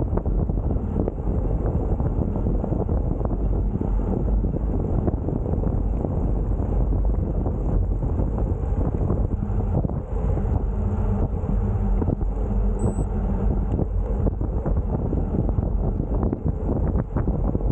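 Wind buffeting the microphone of a camera riding on a bicycle: a steady low rumble with a rough, crackling edge.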